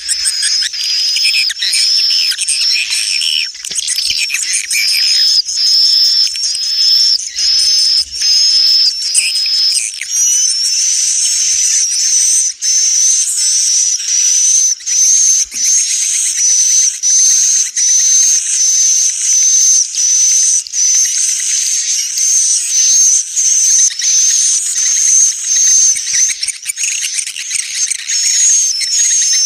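Swiftlets twittering in a dense, unbroken stream of rapid high chirps: the swiftlet roosting ('inap') lure call used in swiftlet houses to draw the birds in to roost and nest.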